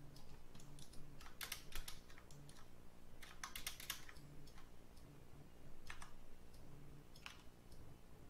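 Faint computer keyboard keystrokes and clicks in short clusters: a quick run about a second and a half in, a longer run about three and a half seconds in, then single clicks near six and seven seconds. A faint low hum lies underneath.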